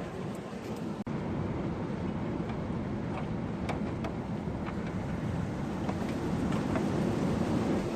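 Gale-force storm wind rushing and buffeting the microphone, with scattered faint ticks through it and a brief drop in level about a second in.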